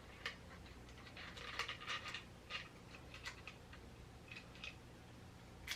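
Faint, scattered clicks and light taps from hand tools and small parts being handled, loudest near the end, over a low steady hum.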